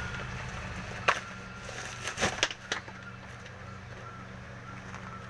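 Packaging being handled while the fan is unboxed: a sharp knock about a second in, then a quick cluster of crackling knocks a second later, over a steady low hum.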